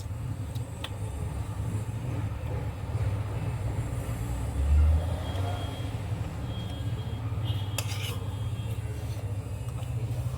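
Steady low rumble with a dull thump about halfway through and a few short, sharp clicks near the end.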